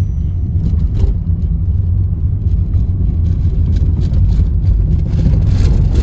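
Car driving on an unpaved dirt forest track, heard from inside the cabin: a steady low rumble of engine and tyres with scattered rattles and knocks.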